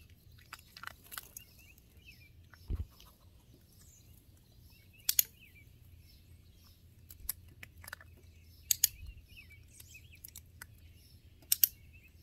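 Dog-training clicker clicked three times, about three seconds apart, each click marking a treat as the marker is being charged. Between clicks come small sounds of the dog chewing from the hand, with birds chirping in the background and a soft thump about three seconds in.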